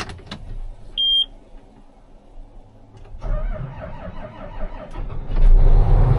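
A short electronic beep, then a John Deere combine's diesel engine cranking from about three seconds in and catching near the end, running steadily.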